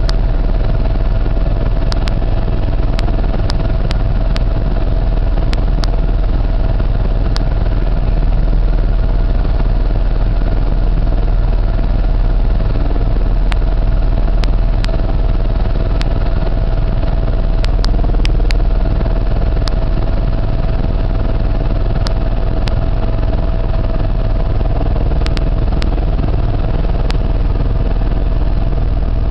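Loud, steady engine drone heard inside a small sightseeing aircraft's cabin on its descent to land: a deep rumble with a constant mid-pitched hum over it.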